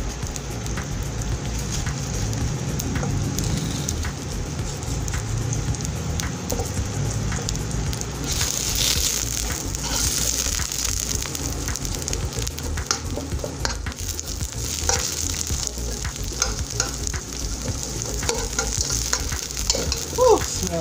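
Sliced onions sizzling in hot oil in a nonstick wok, a steady frying hiss with small ticks and taps. About eight seconds in the sizzle grows louder for a few seconds as the onions are stirred.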